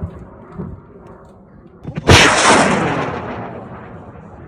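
Noise of a high-power amateur solid rocket motor fading as the rocket climbs away. About two seconds in comes a single sharp crack, then a loud rushing rumble that dies away over the next couple of seconds.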